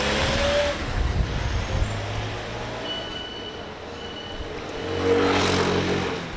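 Street traffic: a truck's engine running as it drives past, fading over the first seconds, then another vehicle passing close with a louder rush that peaks about five seconds in.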